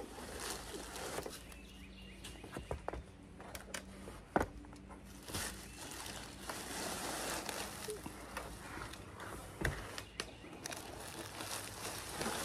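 Hands scooping dead leaves and debris out of a metal roof gutter: rustling and crinkling, with scattered clicks and two sharper knocks.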